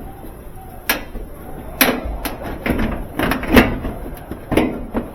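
A run of sharp knocks and clunks, about seven of them at uneven spacing, each with a short ring; the loudest comes about three and a half seconds in.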